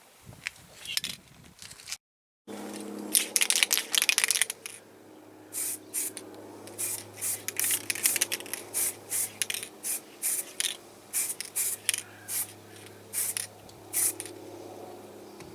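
Aerosol spray-paint can sprayed in many short hissing squirts, quickly at first and then spaced out, as a coat of paint goes on. A steady low hum runs underneath.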